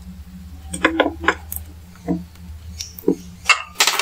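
Handling clicks and light knocks as a thread spool is fitted onto the plastic body of a mini portable sewing machine, over a steady low hum. Near the end, a short dense metallic rattle.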